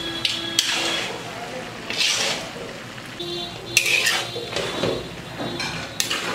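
A metal utensil stirring and scraping cabbage in a metal cooking pot, with a few sharp clinks that ring on: about half a second in, near four seconds and near six seconds.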